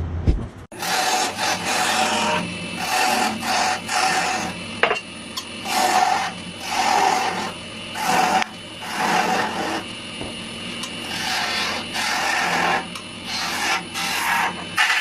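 Wood lathe turning a small spindle of pale wood while a hand-held chisel cuts the spinning wood in repeated passes, each pass a burst of rasping, starting just under a second in.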